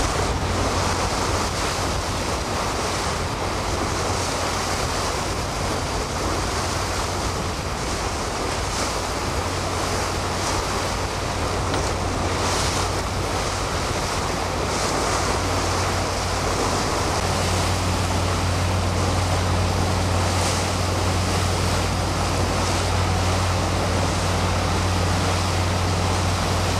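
Wind buffeting the microphone over choppy water: a steady rushing noise with brief louder swells of hiss now and then. Underneath runs a steady low hum that grows stronger about two-thirds of the way in.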